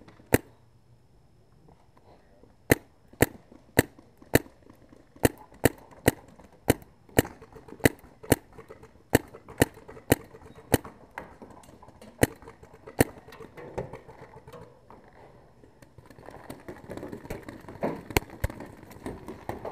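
Paintball marker firing single shots, a steady string at about two a second, sharp and cracking. Near the end comes a stretch of rougher shuffling noise, with two more shots in it.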